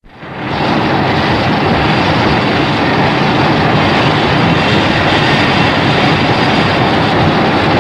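Godzilla sound effect: a loud, steady rushing noise that starts suddenly out of silence, with no pitched roar or growl in it.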